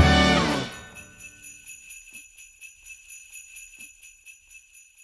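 A band's closing chord breaks off, leaving jingle bells shaken at about four shakes a second that die away to silence.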